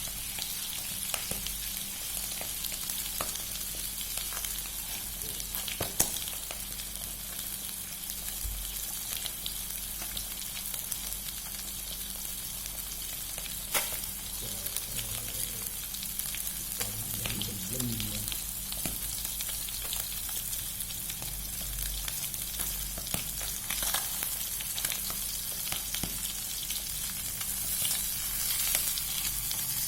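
Food frying in hot oil: a steady sizzle full of small crackles and pops, with a sharper click about six seconds in and another near fourteen seconds.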